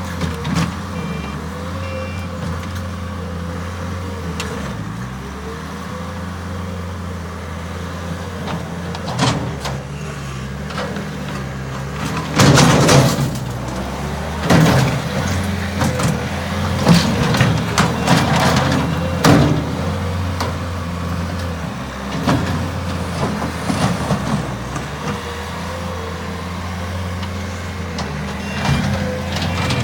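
Bobcat S220 skid-steer loader's diesel engine running steadily, with a run of loud clanks and knocks near the middle.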